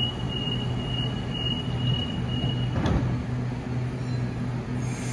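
Sydney Trains double-deck electric train standing at the platform, its onboard equipment giving a steady low hum. A thin high whine stops about three seconds in, followed by a single short click.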